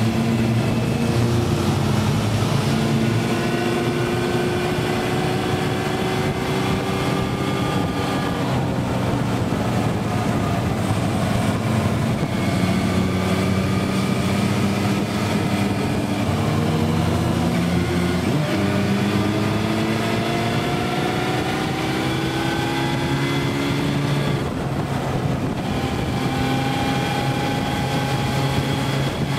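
Motorcycle engine running under way, heard from the rider's seat. Its note climbs slowly and falls back several times as the throttle is opened and eased, over a steady rush of wind.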